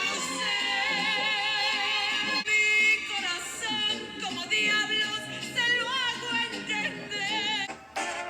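A Latin American song playing, with a singer holding long notes with a wide vibrato over the accompaniment.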